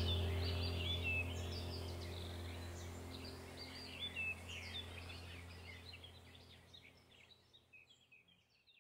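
Birds chirping over a steady low hum, the whole sound fading out gradually to near silence by the end.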